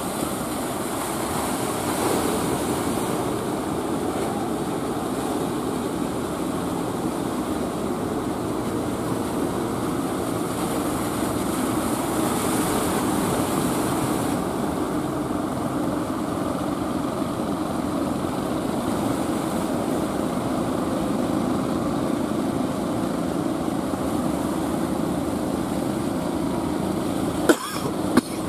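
Outrigger fishing boat's diesel engine running hard under load as the boat pushes through the surf, a steady dense rumble mixed with the wash of waves. Two sharp clicks sound near the end.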